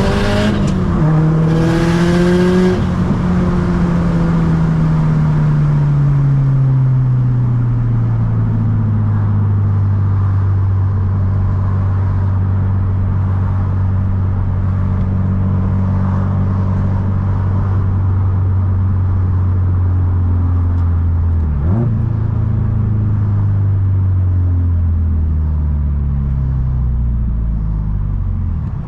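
Subaru STI's turbocharged flat-four engine on the road, revving up and dropping back near the start. Its note then falls as the car slows, holds steady at a cruise with one brief sharp dip about two-thirds of the way through, and falls again near the end.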